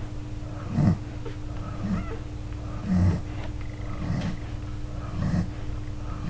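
A nursing dog and her newborn puppies: short low grunts about once a second, some with faint squeaks.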